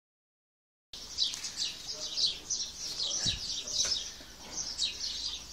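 Small birds chirping steadily, many short falling chirps several times a second, starting about a second in. A single low bump sounds just past halfway.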